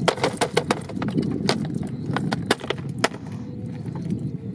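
Handling of a clear plastic cage shrimp trap lifted from the river: a quick series of sharp clicks and knocks, about a dozen in the first three seconds and sparse after, as water drains out of it. Under them runs steady low background noise.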